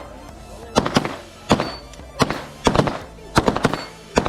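Pistol shots fired at an irregular pace, about nine in all, some in quick pairs and a fast string of three a little past the middle, each a sharp crack with a short echo. Music plays underneath.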